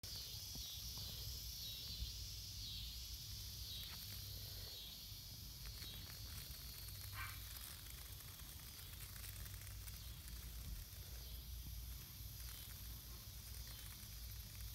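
Faint outdoor ambience: a steady high-pitched hiss over a low rumble, with a few soft clicks or rustles about two, four and seven seconds in.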